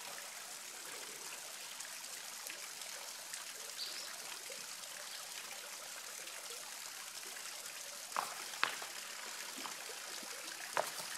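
Creek water trickling steadily, with two short knocks about two-thirds of the way through.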